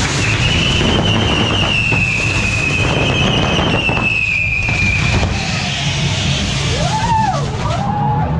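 Fireworks on a burning pyrotechnic figure: a continuous hiss with dense crackling, and a long whistle held for about five seconds that falls slightly in pitch before it stops.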